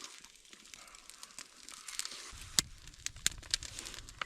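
Light crinkling and rustling with a few sharp clicks as food and its wrapping are handled during eating; a low rumble comes in about two seconds in.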